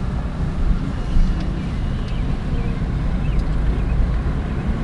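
Car driving, heard from inside the cabin: a steady low rumble of road and engine noise with some wind buffeting the microphone.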